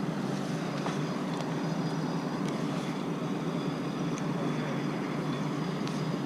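Steady, even engine rumble with no change in speed.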